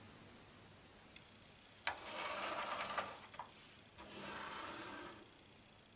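Hands handling tools on a wooden tabletop: a click, then about a second of rubbing and scraping, another click, and a second short stretch of rubbing.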